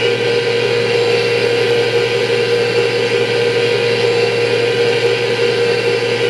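M1A2 Abrams tank engine sound effect from a 1/16 RC tank's sound board, playing through its speaker and running steadily with a constant hum.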